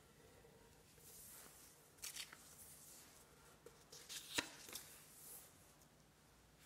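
Faint rustling and crinkling of a sheet of origami paper being folded and creased by hand. A few scattered crisp strokes come through, and a single sharp crackle about two-thirds of the way through is the loudest moment.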